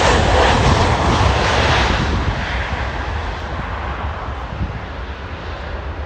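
Airliner's engines running loud as it passes close by, the noise strongest at first and then fading steadily as it moves away.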